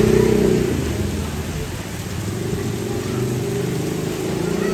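Heavy rain pouring down, a steady dense rush of noise.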